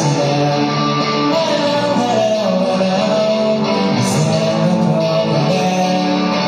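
Rock band playing live in a concert hall: electric guitars and drums, with a sung melody over them.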